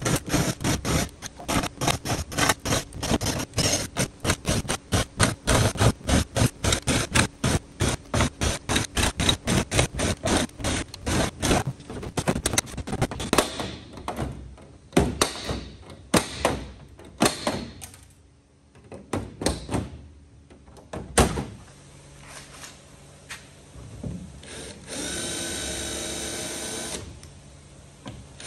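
Power drill drilling out 4 mm countersunk rivets in an aircraft's aluminium skin, chattering in rapid pulses as the bit cuts through the rivet heads. It then runs in short scattered bursts, with a sharp click, and near the end runs steadily for about two seconds.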